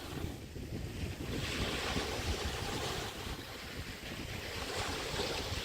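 Small bay waves breaking and washing on a beach, a wash swelling up about a second and a half in and again near the end. Wind gusts buffet the microphone with a low rumble throughout.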